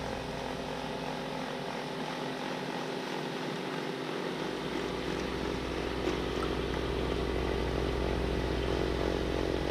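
Gas snowblower engine running steadily under load. Its deep low rumble drops away about a second and a half in and comes back about two seconds later.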